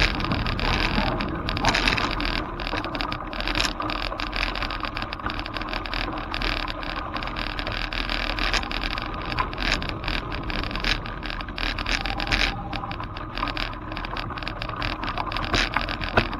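Bicycle rolling over a loose gravel path: steady tyre noise on the stones with frequent rattling clicks and knocks from the jolting bike and mounted camera, over a low wind rumble on the microphone.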